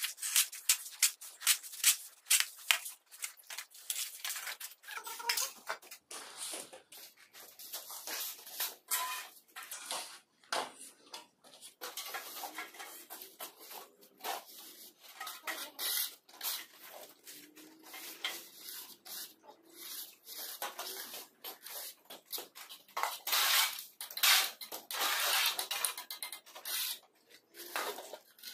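Steel shovel and hoe blades scraping and chopping through a sand-and-cement mortar mix on a concrete floor, in quick repeated strokes for the first few seconds, then slower, irregular scrapes.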